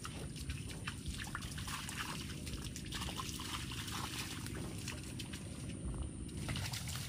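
Shallow muddy rainwater splashing and sloshing in small irregular bursts as bare feet wade through a puddle.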